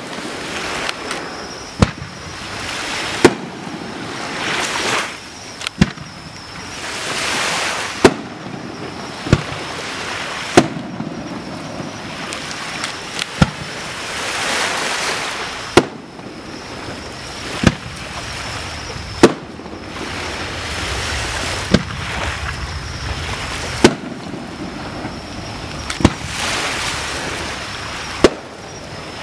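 Japanese aerial firework shells bursting one after another, about fifteen sharp booms spaced one and a half to two and a half seconds apart, over a rushing hiss that swells and fades.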